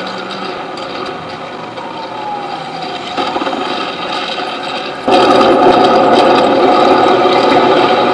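Machine-like buzzing and grinding noise, with a faint falling whine two to three seconds in; about five seconds in it jumps abruptly much louder and stays there.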